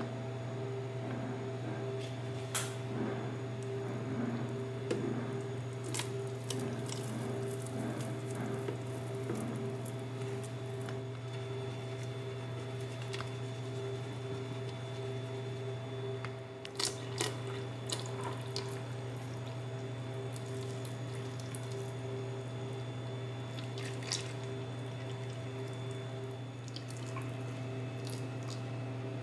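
Thick mango purée slopping and dripping into a clear plastic food container, with a few sharp knocks, over a steady low hum.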